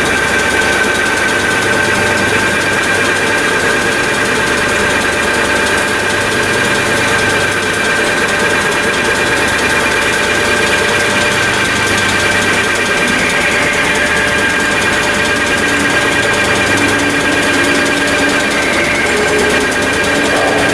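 A Merseyrail Class 507/508 electric multiple unit standing at the platform, its underfloor auxiliary equipment running with a steady high whine over a low hum.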